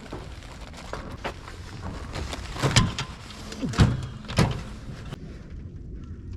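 A few light clicks and knocks, then three heavier thumps about a second apart in the middle.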